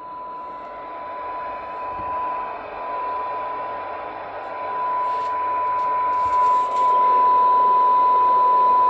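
A Cobra 29 XLR CB radio's speaker plays a steady 1 kHz test tone mixed with receiver hiss during a SINAD sensitivity test. The weak signal generator carrier, near −110 dBm on channel 19, is sinking toward the noise floor. The hiss and tone get louder about five seconds in and again near seven seconds, with a few faint clicks along the way.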